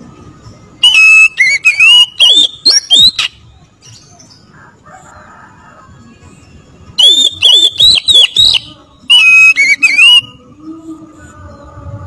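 Oriental magpie-robin (kacer) singing in two loud bouts, about a second in and again about seven seconds in, each a rapid run of clear whistled notes that slide up and down. It is the fired-up, combative song that kacer keepers call ngotot.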